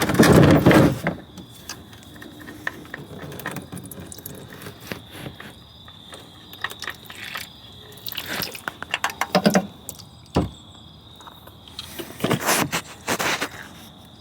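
Scraping and clanking of tools and parts being handled under a car while its oil filter is taken off and the oil drains: a long scrape at the start, more handling noises later, and one sharp click in between.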